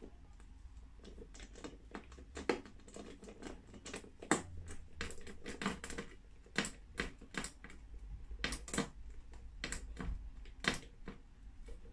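Hand screwdriver driving a screw into the metal tube of an IKEA Mulig clothes rack: irregular light clicks and knocks as the tip and screw turn in the tube.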